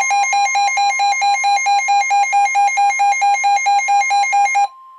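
A weather radio's alert alarm beeping loudly about four times a second over the steady 1050 Hz NOAA Weather Radio warning alarm tone, which marks an incoming warning. Near the end the beeping stops and the steady tone carries on alone, more quietly.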